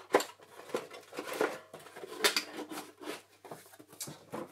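Cardboard box being handled: its flaps folded shut and the box lifted away, an irregular run of scuffs, rustles and light taps.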